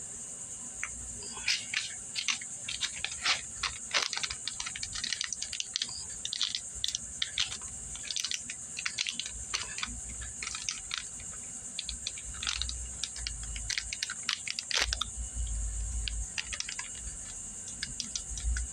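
Plastic packaging crinkling and rustling in many short, irregular crackles as piston rings are taken out of their bags.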